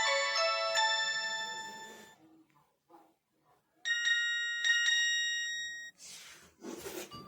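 Nokia 225 mobile phone playing its built-in ringtones through its small loudspeaker. A melodic tune fades out over the first two seconds. After a short pause comes a brief bell-like chime of a few ringing notes, then a short burst of hiss near the end.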